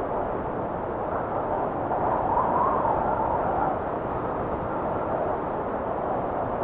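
Wind blowing in a steady rush, swelling into a slightly stronger gust about two to three seconds in.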